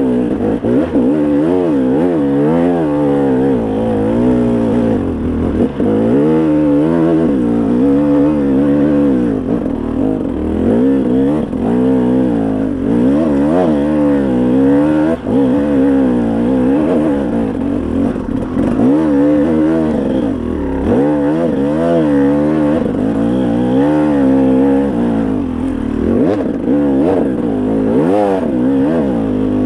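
KTM 300 two-stroke dirt bike engine under way on a climbing trail, its pitch rising and falling again and again as the throttle opens and closes.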